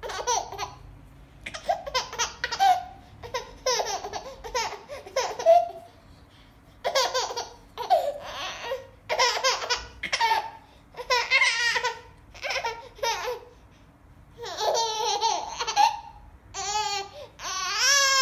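Baby laughing in repeated short bouts of giggles, about ten in all, the last one rising into a high squeal near the end.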